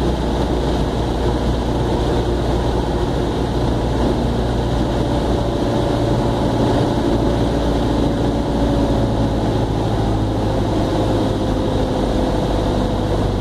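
Steady drone of engine and rushing air inside an aircraft cockpit on final approach, with a faint tone that slowly falls in pitch in the second half.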